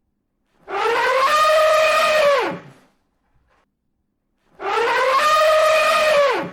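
Elephant trumpeting: two matching calls about two seconds long each, one near the start and one near the end. Each rises at the onset, holds a steady brassy pitch, then drops away.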